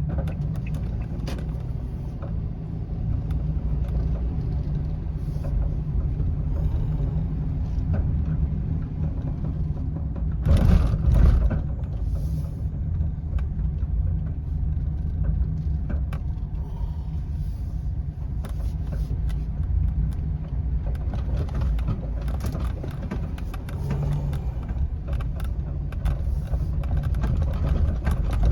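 A car being driven: a steady low engine and road rumble. About ten seconds in it briefly swells into a louder rush.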